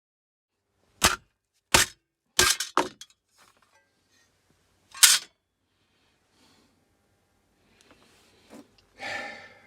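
Sharp cracks and smashes of electrical scrap being broken apart, about half a dozen hits with a quick flurry in the middle, then a softer knock and a short scrape near the end.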